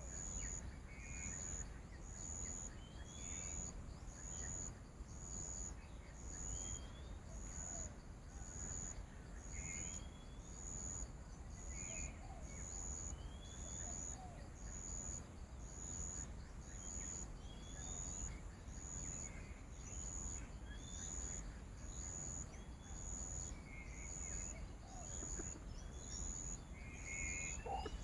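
Outdoor ambience of insects and birds. A high insect pulse repeats evenly about every second and a bit, short rising bird chirps come every few seconds, and there is a low rumble underneath.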